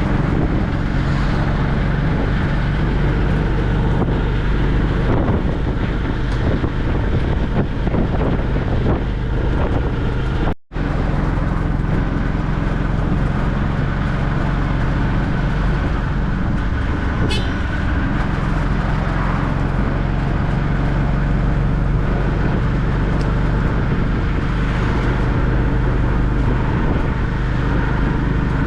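Tuk-tuk (auto-rickshaw) engine running steadily on the move, with road traffic around it. The sound drops out for a split second about ten seconds in.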